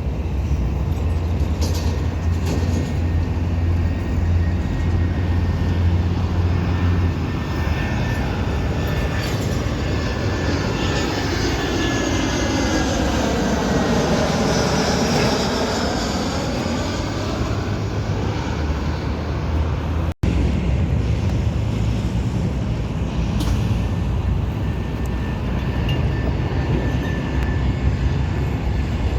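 Airliner on landing approach passing low overhead. Its steady noise swells and then fades, peaking about halfway through, over a low steady hum. The sound cuts out for an instant about two-thirds of the way in.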